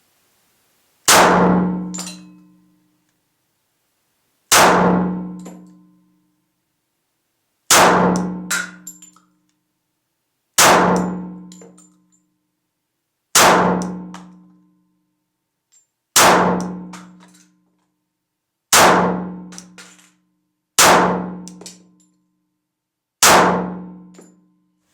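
Nine slow, single pistol shots from a .45 ACP Glock 36 (fitted with a Glock 30 grip and double-stack magazine), spaced about two to three seconds apart. Each shot is followed by about a second of ringing decay.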